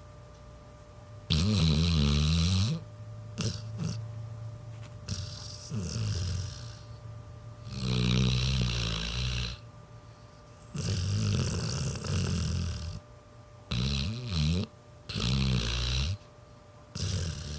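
Pit bull snoring in her sleep: about seven loud snores of one to two seconds each at uneven gaps, the first about a second in, each with a buzzing pitch that wavers.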